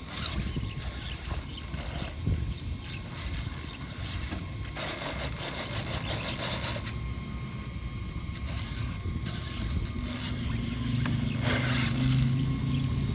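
Motor and gear drivetrain of an Axial SCX10-based radio-controlled rock crawler whining as it crawls over scrap boards. Wood and debris scrape and crackle under the tyres about five seconds in and again near the end. The whine grows louder over the last few seconds as the crawler climbs onto a board.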